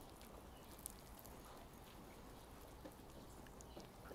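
Faint rain pattering: light scattered drips and ticks over a low steady hum.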